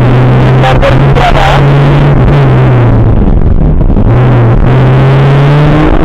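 Škoda Felicia rally car's 1.3-litre four-cylinder engine running hard, heard loud from inside the cabin; its pitch dips a little past two seconds in, then climbs steadily toward the end as the car accelerates.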